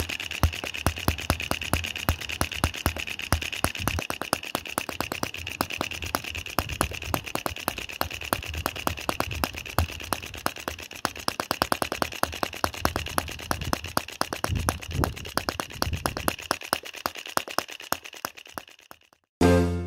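Microcosm M25 sideshaft four-stroke model gas engine running steadily: a fast, even string of firing pops with a metallic rattle. It dies away near the end, and music starts just after.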